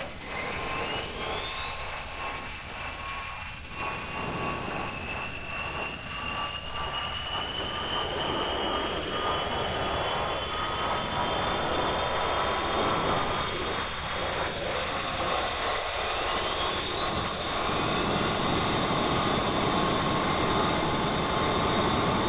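Boeing 747 jet engines whining and running up, with a whine that rises sharply in pitch twice over a steady roar that grows louder.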